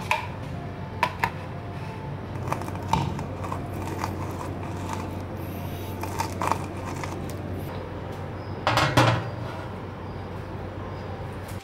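Kitchen handling sounds over a steady low hum: light knocks and taps as lemon halves are set on a plastic cutting board and twisted on a plastic hand juicer. About nine seconds in comes a louder clatter as a metal baking pan is handled.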